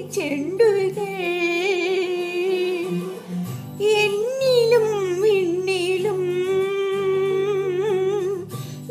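A high voice singing long, drawn-out notes with a wavering vibrato along to a Malayalam film song's recorded accompaniment, with steady low instrumental notes underneath. Two long phrases, with a short break a little before the middle.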